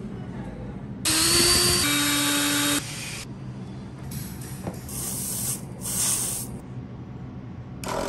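A small electric motor or pump whirs loudly with a hiss for about two seconds, its pitch dropping partway through. A few short bursts of hissing follow.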